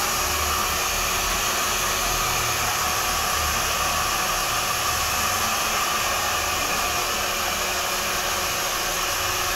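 Handheld hair dryer running steadily, blowing hot air while a customer's freshly cut hair is dried and styled.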